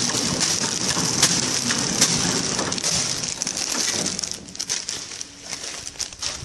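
KT 350D bread bag filling and sealing machine running, a steady hiss with many sharp clicks. About four seconds in the hiss drops away, leaving scattered clicks over a faint hum.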